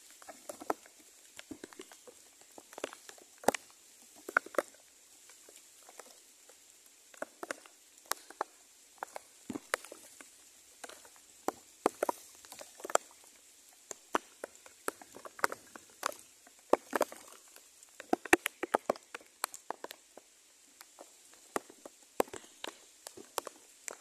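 Irregular patter of light ticks and taps, scattered unevenly, sometimes several in a second.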